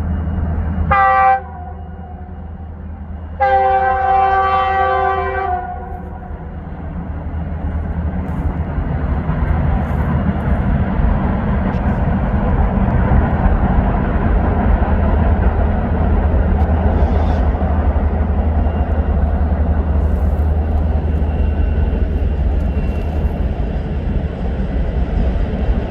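Train horn sounding a short blast, then a longer one about two seconds later. A steady rumble of the passing train then builds and holds.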